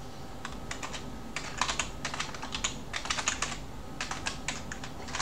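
Computer keyboard being typed on in quick runs of key clicks, several clicks per run, with short pauses between the runs.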